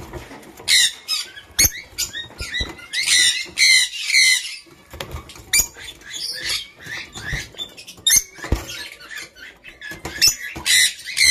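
Peach-faced lovebirds chattering: repeated short, sharp high chirps and squeaks, some in quick runs, with a few light knocks in between.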